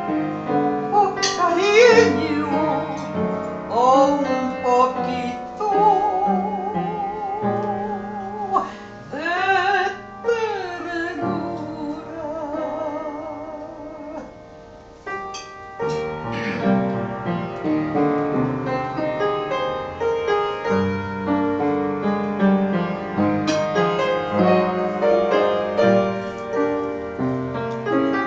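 Soprano singing with wide vibrato over piano accompaniment, holding long notes. Her voice stops about eleven seconds in, and the piano carries on alone.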